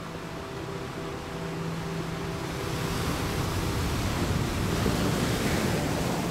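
Ocean surf: a rush of breaking wave that swells to a peak about five seconds in, then falls away, over soft sustained music tones.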